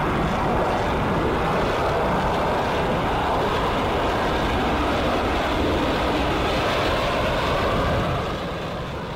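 F-35A Lightning II's single F135 afterburning turbofan at takeoff power as the jet lifts off and climbs away: a steady jet rush that begins to fade about eight seconds in.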